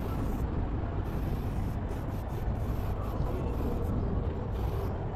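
Aerosol spray paint can hissing in short on-off bursts as paint is laid on a wall, over a steady low rumble.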